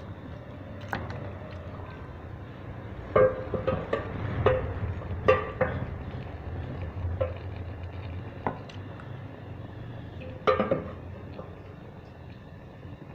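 A metal utensil clinking and knocking against a steel cooking pot: about a dozen irregular strikes, each with a brief ring, the loudest about three, five and ten and a half seconds in, over a steady low hum.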